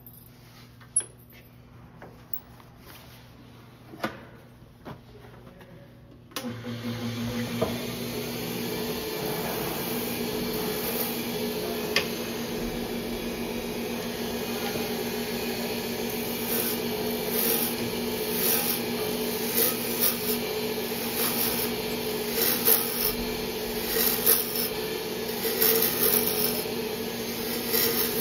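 Wood lathe spinning a mallet head while a turning gouge cuts a taper into it, giving a steady motor hum under a rough scraping hiss of the tool cutting wood, with repeated swishing strokes as the tool is worked along. This sound starts abruptly about six seconds in, after a few light clicks. Near the end the cut begins to get slightly grabby, a sign that the tool is being flattened from reaching too far over the tool rest.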